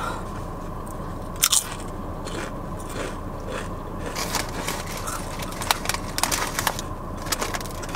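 Crisp SunChips multigrain chips being bitten and chewed: one loud crunchy bite about one and a half seconds in, then smaller scattered crunches as the chewing goes on.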